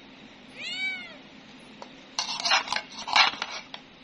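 A cat meows once, about a second in, in a single rising-and-falling call. Then a metal serving spoon scrapes and clatters against a metal tray of rice in two short bursts, the second the loudest.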